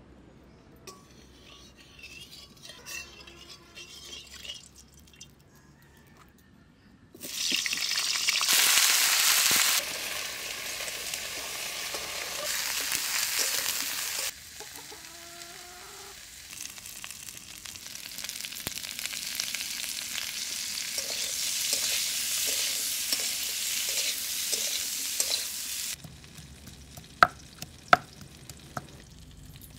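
Cauliflower florets sizzling as they fry in hot oil in a karahi. The sizzling starts about a quarter of the way in and is loudest at first. Near the end come a few sharp knocks of a knife chopping ginger on a wooden board.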